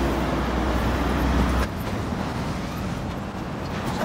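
Street traffic: a motor vehicle's engine rumbles low and steady, then cuts off suddenly under two seconds in, leaving quieter general traffic noise.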